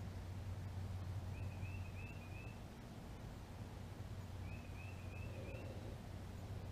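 A bird outdoors singing a short phrase of four or five quick high chirps, twice, over a steady low hum.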